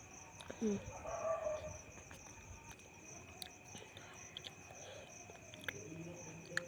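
Faint steady high-pitched insect trilling. A soft murmur of voices comes about a second in, and a few light clicks are scattered through.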